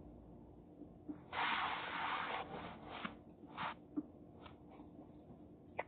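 Eating noises from picking apart and eating king crab: a rough, rubbing hiss lasting about a second, then several shorter bursts and a sharp click.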